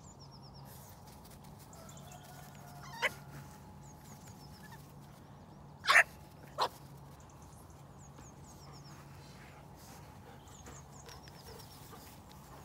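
Small dog giving short, sharp play yaps while playing with a sheep: one about three seconds in, then two close together about halfway through, the first of those the loudest.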